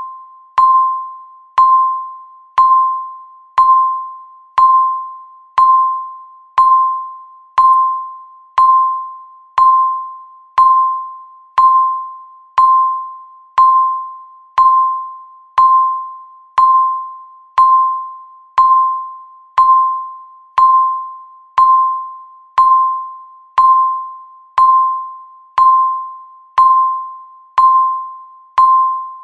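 Countdown timer's per-second beep: a single clear electronic chime tone struck about once a second. Each strike starts sharply and fades out before the next.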